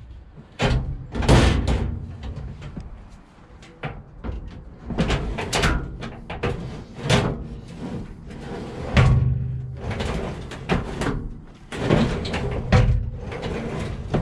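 Van Vault Stacker XL steel drawer being pulled out and pushed back in on its ball-bearing runners, with repeated clanks, rattles and thuds as it slides and shuts.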